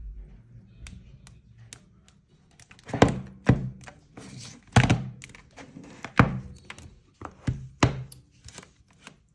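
A series of sharp knocks, faint at first, then louder from about three seconds in, loosely in pairs about every one and a half seconds.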